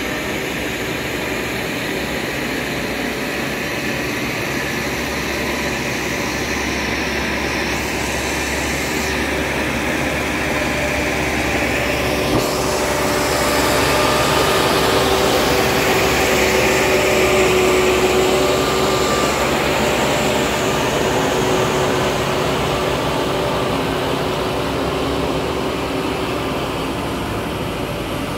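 Diesel engine of a crawler tractor running steadily as it tills a flooded rice paddy, with a steady hum and low rumble. It grows louder around the middle as the tractor comes closer.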